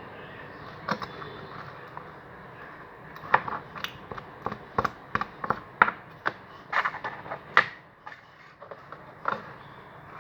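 Freshly made borax slime being squeezed and worked by hand: a scattered run of sharp clicks and pops, thickest in the middle.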